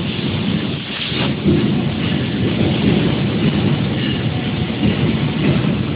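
Robot-arm fiber laser cutting head working on a stamped sheet-steel panel: a steady, loud rushing noise with a crackling patter, the sound of the cut and its assist gas.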